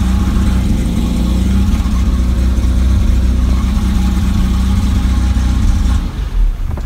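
BMW E30's engine idling roughly, then stalling about six seconds in with a dull thump as it dies. The rough idle and stalling come from fuel starvation, which the owner traced to a corroded C191 connector that feeds power to the fuel injectors.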